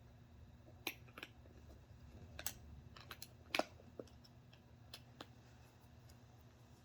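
Light, scattered clicks and taps of small RC crawler wheel and tire parts being handled, with a sharper knock about three and a half seconds in.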